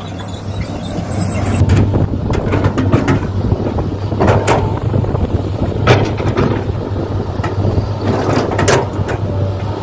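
Heavy diesel engine running steadily with a low hum and a rattle, broken by a few sharp metallic knocks about four, six and nine seconds in.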